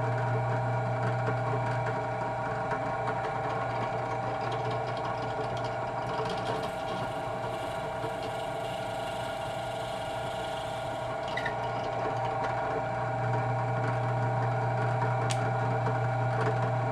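Benchtop drill press motor running with a steady hum. For about five seconds near the middle, the bit cuts a shallow hole into a small wooden disc, adding a rougher cutting noise over the hum.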